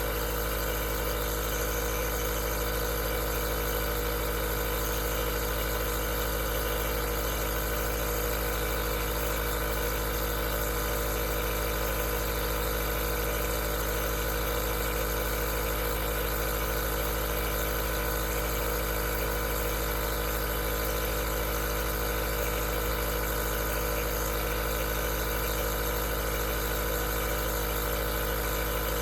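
Aerosol nebulizer's small compressor running steadily: an even motor hum made of many steady tones over a constant airy hiss.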